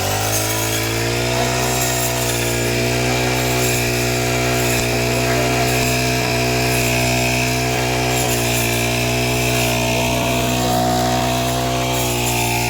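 An engine picking up speed right at the start, then running steadily at high speed with an even, buzzing hum.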